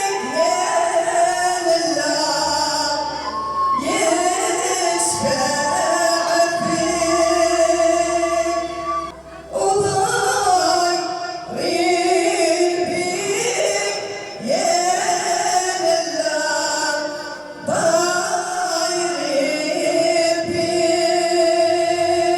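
Music with male and female singing, in sung phrases a few seconds long with brief breaks between them.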